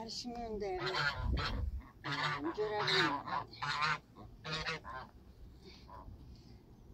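Geese honking, a run of short repeated calls over the first five seconds, then quieter.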